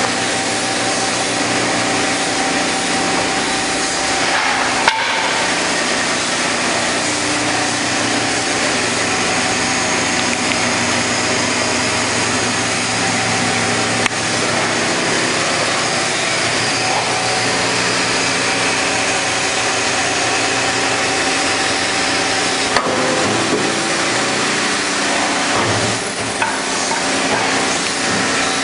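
Chiun Fong CBL-1150H automatic hydraulic back-knife wood turning lathe running and turning solid wood: a loud, steady machine noise with a humming drone, broken by a few sharp knocks.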